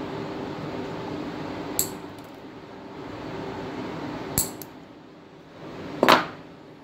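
Metal tweezers clicking against a small capacitor held in an alligator clip: two short sharp clicks, then a louder knock near the end. A steady hum runs underneath.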